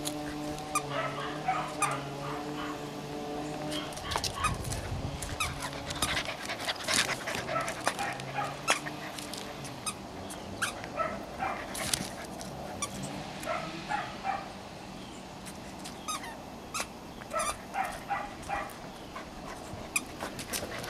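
14-week-old cocker spaniel puppies at play, giving short yips and whimpers now and then amid many small clicks and scuffles.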